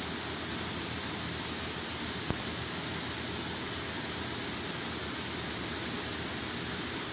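Steady rushing hiss of an electric shop fan running, with a single sharp click a little over two seconds in.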